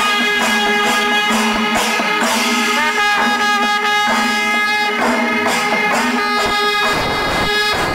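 Instrumental background music: several held notes sounding together, with percussion strikes at intervals.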